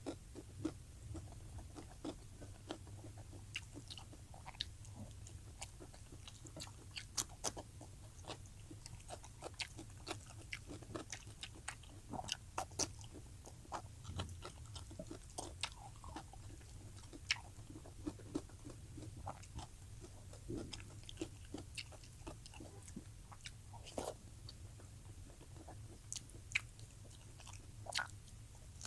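Close-miked chewing and biting of food, with many irregular wet mouth clicks and occasional crunches over a low steady hum.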